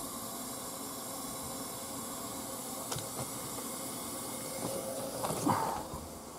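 Refrigerant hissing steadily through the opened high-side service valve of a mini split outdoor unit as the charge is released into the evacuated line set. A few light clicks and a brief louder knock come about five seconds in.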